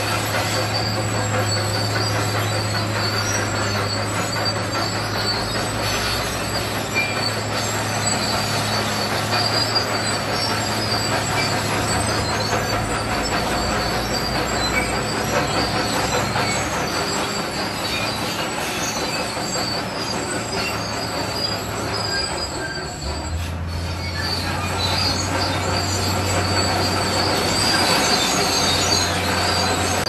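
ZoomLion crawler bulldozer at work pushing rock and gravel fill: its diesel engine runs steadily under load over the high squeal and rattle of the steel tracks. The engine note drops briefly about two-thirds of the way through.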